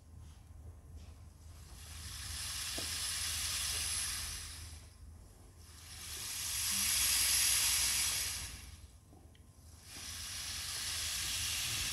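A rushing hiss that swells and fades three times, each swell a few seconds long, over a steady low hum; it cuts off abruptly at the end.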